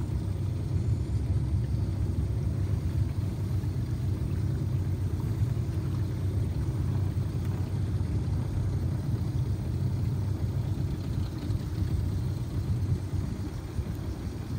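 Boat motor running at a steady speed, heard from on board as a low, even rumble.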